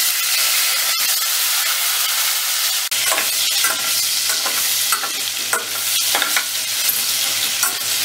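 Cubes of elephant foot yam sizzling as they fry in hot oil in a steel kadai. From about three seconds in, a spatula scrapes and stirs them in a series of short strokes.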